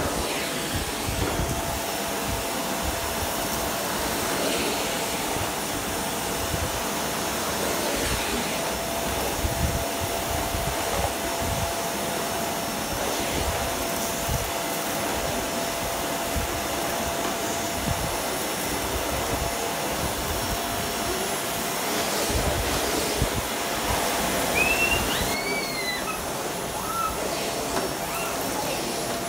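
Canister vacuum cleaner running steadily on a rug, a constant rushing noise with a thin steady hum from the motor.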